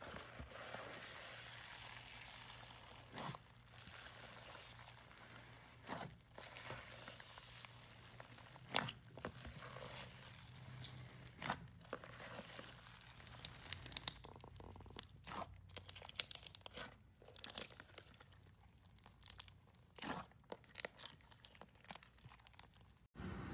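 Jelly cube slime being squeezed and pressed by hand, making scattered crunches and crackles that come more often in the second half.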